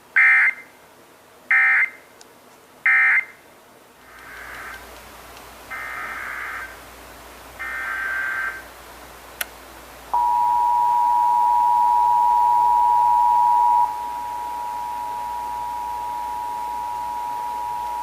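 Emergency Alert System tones. First come three short data bursts, the end-of-message code closing one station's test. Three longer, quieter header bursts and a click follow, then about ten seconds in the steady two-tone EAS attention signal begins, dropping in level partway through.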